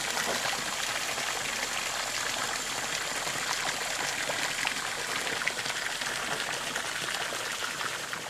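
Water pouring steadily from a fountain's cast-iron spout and splashing into a stone trough.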